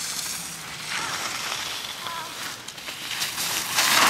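Skis carving and scraping across packed snow through giant slalom turns, a hiss that grows louder as the skier passes close, loudest near the end.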